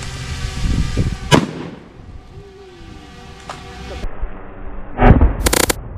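Two sharp bangs: one about a second and a half in, and a louder, deeper boom at about five seconds, followed briefly by a dense buzzing noise.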